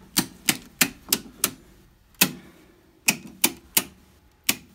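Circuit breakers in a home breaker panel being snapped off one after another by hand. About ten sharp clicks come in quick runs of three to five, with short pauses between the runs.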